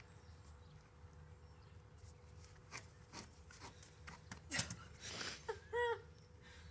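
A plastic hula hoop slipping off the hips and dropping to the ground, with a few light knocks, the loudest about four and a half seconds in. A brief vocal sound follows soon after.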